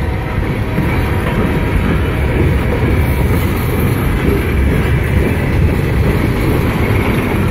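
Loaded freight gondola cars rolling slowly past on the track, their steel wheels running on the rails in a steady, loud rumble.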